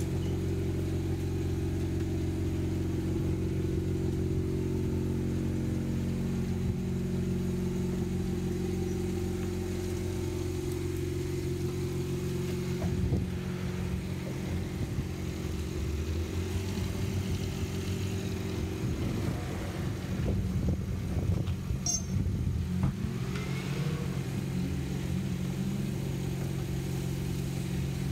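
A motor runs with a steady low drone, its pitch shifting slightly a few times. From about halfway, irregular short wet rubbing and splashing noises come and go over it as the car is washed by hand.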